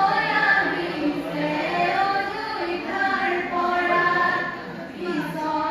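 A group of women singing biya naam, Assamese wedding songs, together without instruments, in long held phrases.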